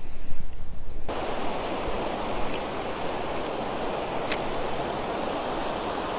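Steady rush of a river running over shallow rapids, starting abruptly about a second in after low rumbling. A single sharp click about two-thirds of the way through.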